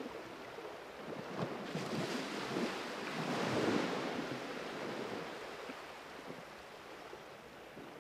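Surf: a wave washes in as a rushing noise that swells to a peak about three and a half seconds in, then slowly fades.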